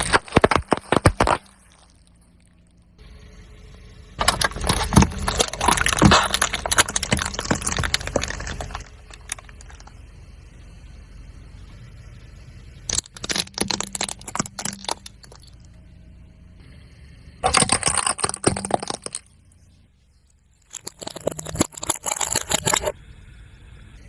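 Objects crackling and snapping as a car tyre rolls over and crushes them, in five separate bouts. The longest bout runs for about four seconds, and a low rumble lies under the quieter gaps.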